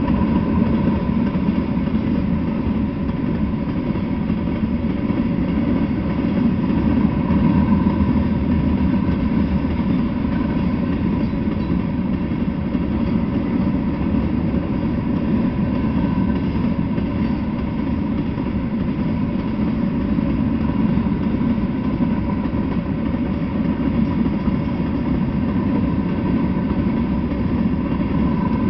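Freight train of covered hopper cars rolling past, a steady low rumble of wheels on rail, with a faint steady high tone running through it.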